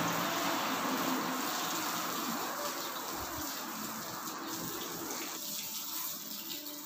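A car driving past on the street, its engine and tyre noise fading away steadily as it moves off.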